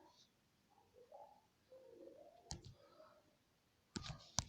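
Near silence broken by a few faint, short clicks: one about two and a half seconds in and two close together near the end.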